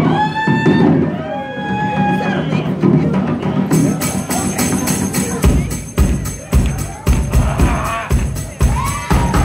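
Live rock drum solo on a full drum kit. Over the first three seconds audience members whoop and shout over the drumming. From about four seconds in a cymbal rings on, and heavy drum hits land about three a second.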